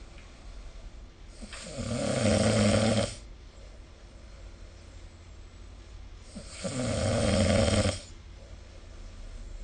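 A sleeping person snoring: two long snores, each about two seconds, some five seconds apart.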